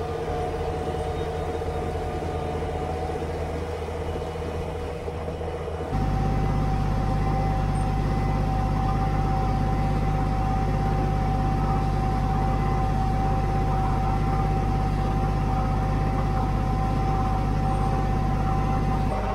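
Kubota BX23S compact tractor's three-cylinder diesel running steadily under load, driving the front snowblower. About six seconds in the sound cuts to inside the enclosed cab, where the engine hum is louder and carries a steady high tone.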